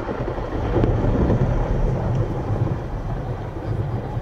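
Low, rolling rumble of aerial fireworks shell bursts echoing back, with no sharp bang of its own.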